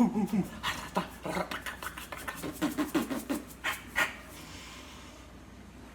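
A person making a dog-like noise with the voice: quick breathy panting huffs, several a second, mixed with short yelps, stopping about four seconds in.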